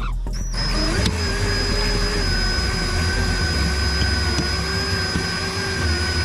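Motorised winder of a windshield wire cut-out tool running, reeling in the cutting wire through the urethane bead: a steady motor whine that rises in pitch as it spins up about half a second in, then holds.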